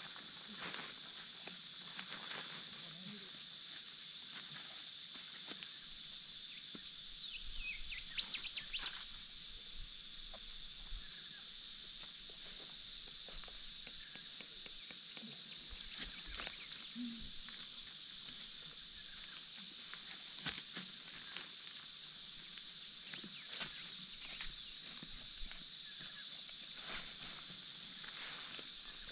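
Steady high-pitched drone of insects that does not let up, with scattered faint clicks and rustles beneath it.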